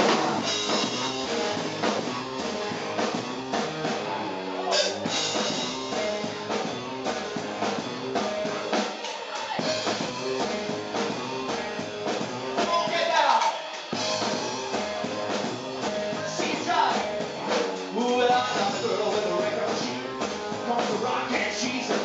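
Live rockabilly band playing an up-tempo rock and roll number on electric guitar, upright double bass and drum kit.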